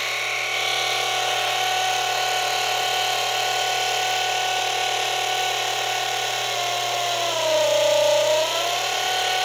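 Small electric gear oil pump with brass gears running at 25 volts: a steady whine. It is pulling motor oil aerated by air drawn in through unsealed suction-side hose joints. Near the end its pitch sags for about a second, then comes back up.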